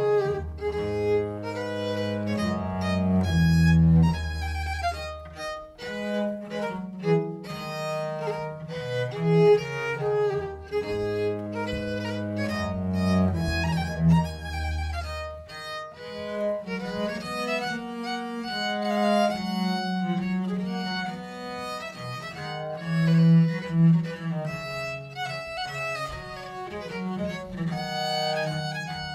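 Baroque violin and viola da gamba playing baroque music together, the violin carrying a quick-moving melody over the gamba's low bass line.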